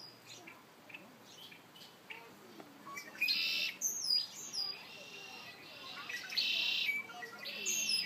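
Songbird singing: three short trilled songs, about three, six and seven and a half seconds in, with fainter scattered chirps before them.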